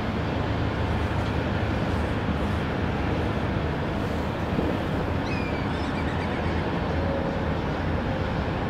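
Steady low rumble of outdoor background noise, with a few faint short high notes about five seconds in.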